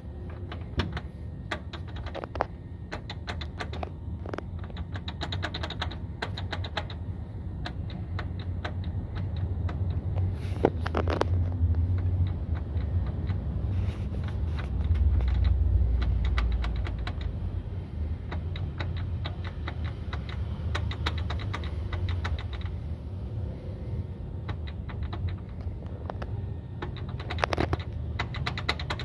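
Citroën C3's front suspension rattling and clicking in quick runs of small knocks over a low road rumble, the suspension noise that points to a fault in the car.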